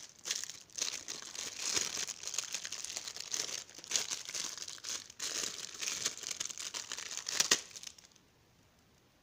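Clear plastic bag holding a multimeter's temperature probe crinkling and rustling as it is handled, in irregular crackles that stop abruptly near the end.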